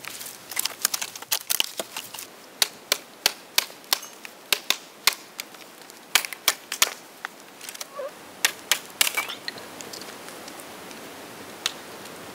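Dry, weathered dead branches knocking and cracking against each other as they are handled and stacked into a lean-to: sharp irregular clicks, about two or three a second, that stop about nine seconds in, leaving a steady soft hiss.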